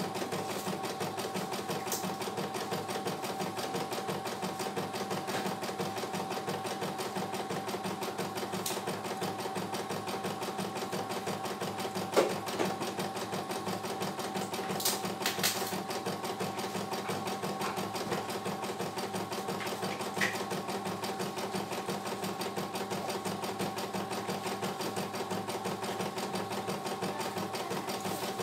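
CNY E900 computerized embroidery machine stitching a design: a steady, fast run of needle strokes over a constant motor whine, with a few louder clicks here and there.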